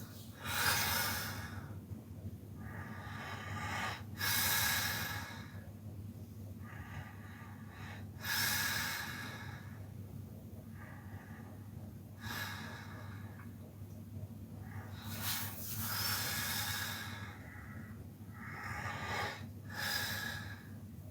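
A man snoring in his sleep: rasping, hissy breaths come about every four seconds, with a steady low hum underneath.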